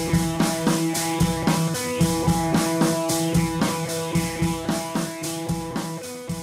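Background music with a steady beat and held notes, fading out toward the end.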